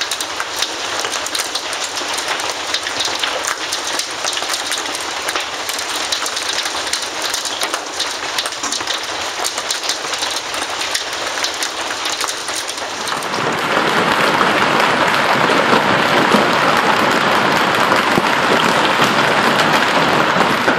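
Hail falling, a dense rapid patter of ice ticks. About 13 seconds in it changes abruptly to a louder, even hiss of heavier hail.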